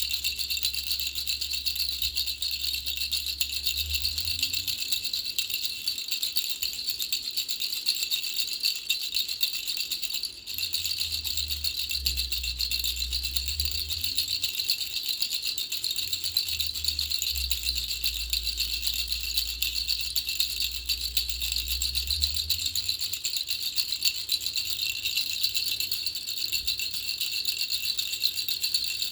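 Three-ball baby rattle being shaken continuously, a dense, fast rattling that breaks off for a moment about ten seconds in.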